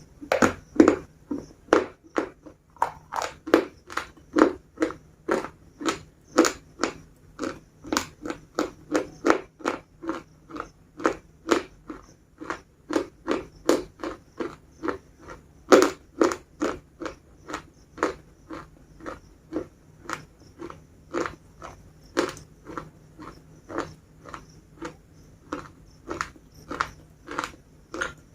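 Biscuits being chewed close to the microphone: a steady run of crisp crunches, about two a second, the first bite landing right at the start.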